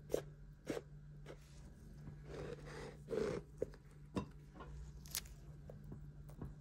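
A spatula clicking and knocking against a metal cake ring while mascarpone cream is scraped and spread, about six sharp taps in all, with a soft rustle of handling around the middle as the chocolate sponge layer is pressed into the ring.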